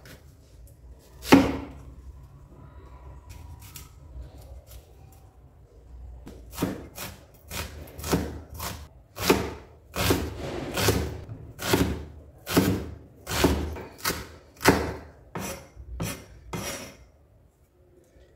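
Cleaver-style kitchen knife chopping an onion on a wooden chopping board. A single knock comes about a second in, then a steady run of about twenty chops at about two a second that stops near the end.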